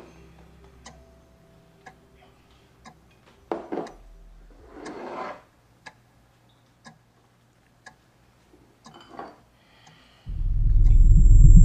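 A clock ticking about once a second in a quiet room, with a few louder handling sounds in between. About ten seconds in, a loud, low pulsing drone starts suddenly and holds.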